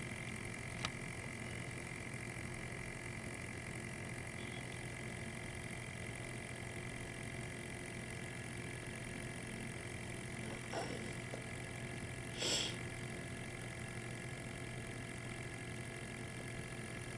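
Riken FI-21 gas analyzer's small internal sampling pump running with a steady hum, drawing gas from the vaporizer while the reading settles. A light click comes about a second in, with two brief soft noises around eleven and twelve and a half seconds.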